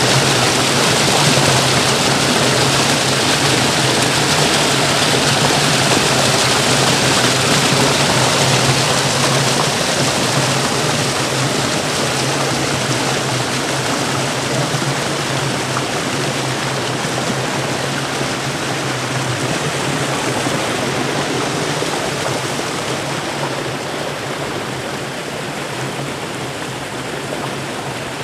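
Creek water cascading over boulders in a small waterfall: a steady rushing splash that eases off a little in the second half.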